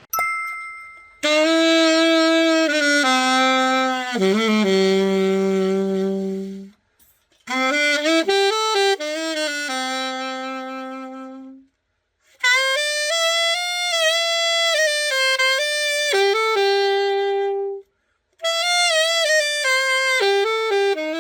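Alto saxophone, a freshly overhauled Conn 24M, played solo in short melodic phrases separated by brief rests, as a play test of the finished repair.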